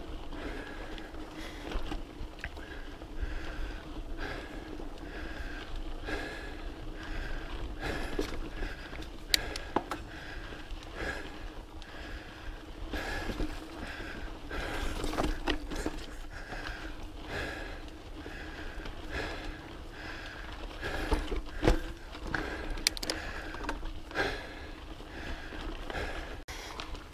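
Specialized Camber Comp 650b mountain bike rolling over a rocky dirt trail: a constant rumble of tyres on dirt, with sharp knocks and rattles as the wheels hit rocks. Under it comes the rider's rhythmic breathing, a soft puff repeating under a second apart.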